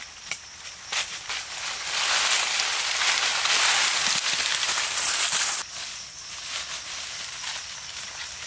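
Leafy branches and undergrowth rustling and brushing, a long loud stretch from about two seconds in that eases off after about five and a half seconds, with a few sharp twig snaps near the start and footsteps on dry leaf litter.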